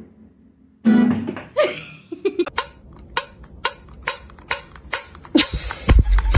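A few guitar notes, then a run of sharp taps about two a second from a fingertip tapping the lid of a metal pet-food can.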